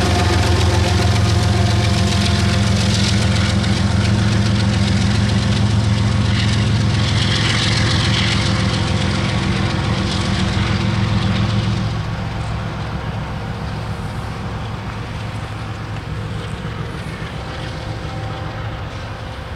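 Canadian Pacific diesel freight locomotive running as it passes and pulls away, a steady low engine drone over rail noise. The sound drops about twelve seconds in and keeps fading as the locomotive recedes.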